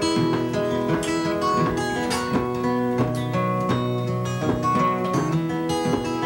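Black steel-string acoustic guitar played solo, picking a moving bass line under chords in a steady rhythm.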